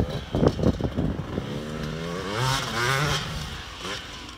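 Dirt bike engine revving up and down while being ridden, with quick sharp blips in the first second and wavering revs through the middle that fade towards the end.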